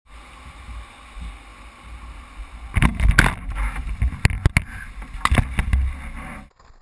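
Handling noise from an action camera mounted on a paddle shaft while the paddle is carried: a low rumble of wind on the microphone, then from about three seconds in a run of sharp knocks and clatter, stopping abruptly near the end.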